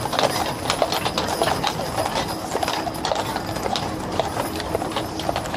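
Horses' hooves clip-clopping in a quick, irregular run of strikes as a parade team walks past.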